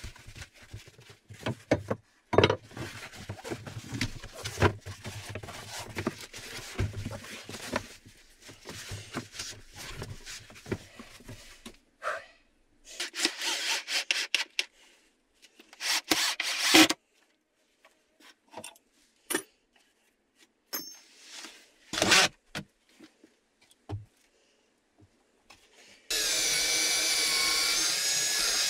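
Wood being handled and knocked with scraping and rubbing, then short bursts of a cordless drill boring into a board. A loud knock follows, and near the end the cordless drill runs steadily with a motor whine as it drives into a log wall.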